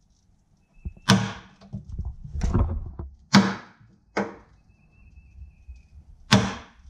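Hammer striking the handle of a scraper wedged under a block bonded to a carbon-fiber jet ski hull floor, chiseling it loose: five sharp knocks at uneven intervals.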